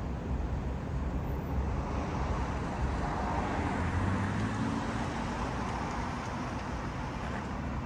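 Steady rumble of road traffic outdoors, with one vehicle's engine coming up louder through the middle and fading again.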